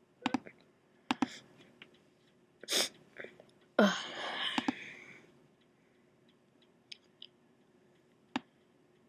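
Computer mouse clicks scattered throughout. About four seconds in comes a breathy vocal noise lasting over a second, from a person with a head cold.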